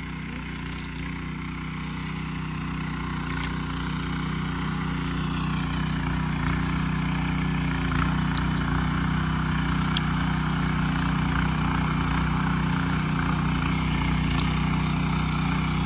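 A walk-behind motor tiller's engine running steadily, a low even engine hum that grows gradually louder over the first several seconds.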